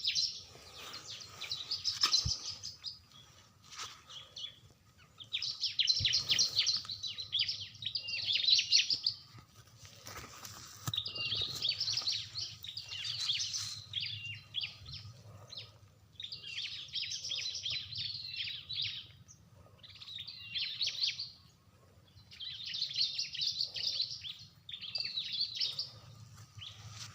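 Small birds chirping in fast, chattering bursts of a second or two, repeated every few seconds, with a faint low hum underneath.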